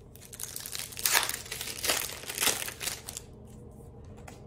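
Paper trading cards and their pack being handled in the hands: crinkling and rustling with a few louder scrapes, dying away about three seconds in.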